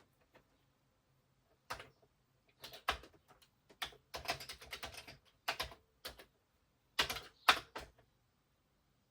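Keystrokes on a Sharp MZ-711 home computer's keyboard as a short BASIC program is typed in: irregular clicks, some in quick runs, with short pauses between.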